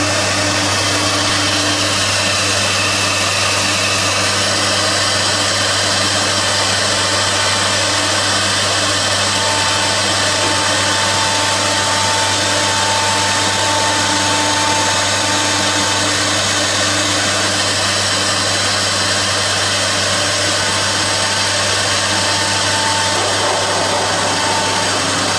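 CNC router spindle milling a solid-wood door blank, running steadily together with its dust extraction. A thin whine comes and goes partway through.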